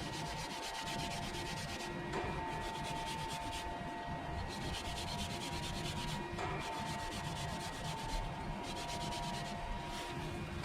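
Steady abrasive rubbing, as when deburring a machined metal part, over a machine hum with a few steady tones that shift every couple of seconds.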